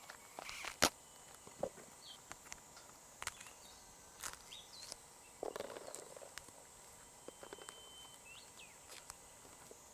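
Scattered clicks and knocks of hands working with food and utensils, the loudest a sharp knock about a second in. Short high bird chirps come in a few times, over a faint steady high-pitched drone.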